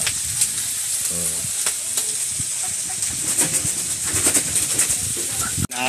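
Pieces of meat frying in hot oil in a wok, a steady sizzle with scattered small clicks.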